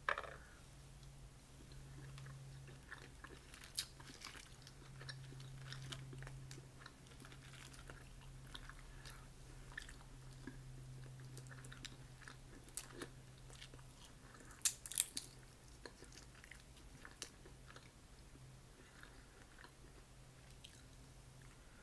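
Boiled crawfish being peeled by hand and eaten: shells cracking and pulling apart, with chewing, a scatter of soft crackles and clicks and two louder clicks about fifteen seconds in.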